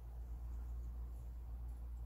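Steady low hum with a faint hiss and no distinct events.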